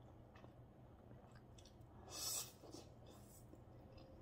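Quiet mouth sounds of someone eating spicy noodles: small wet clicks, and one short slurp of noodles about two seconds in.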